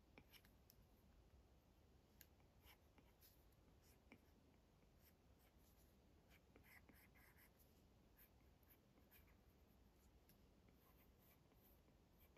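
Faint stylus tip tapping and sliding across an iPad's glass screen in short sketching strokes, with a denser run of scratchy strokes about seven seconds in.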